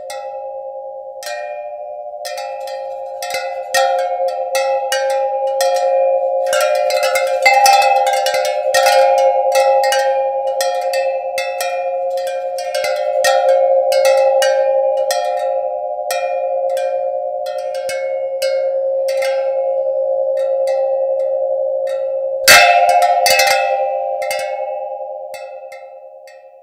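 Soundtrack music: a held droning chord with a fast, uneven scatter of short pitched percussive ticks over it. A single louder hit comes about three-quarters of the way through, then the music fades out.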